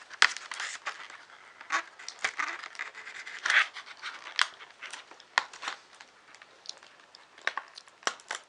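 Plastic packaging crinkling and rustling as small kit parts are handled and pulled out, with irregular sharp clicks and rustles.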